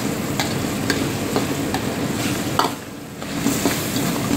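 Lamb in tomato gravy sizzling in a kadhai while a spatula stirs and scrapes the pan, knocking against it about twice a second. The sizzle drops briefly about three seconds in, then comes back.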